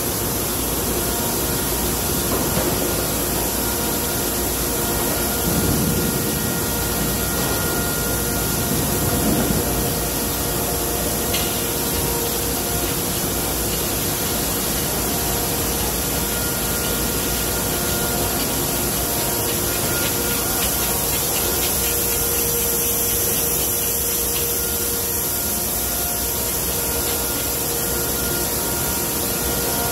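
Steady machinery noise in a cheese-processing plant: an even hiss with several steady humming tones under it, and a couple of brief low rumbles about six and nine seconds in.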